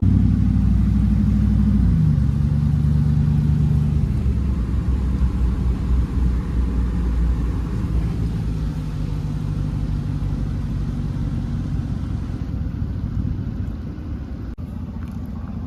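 Truck engine running while driving, a steady low rumble; the engine note drops about two seconds in.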